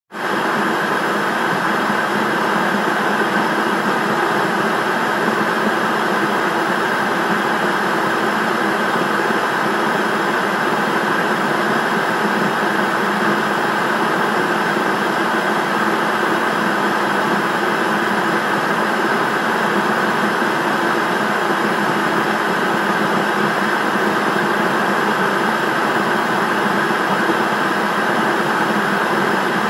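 Television static: a steady, unchanging hiss of an untuned TV.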